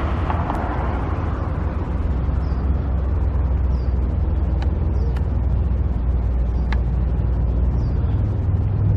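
Steady low rumble of engines, with a few faint short high chirps and clicks.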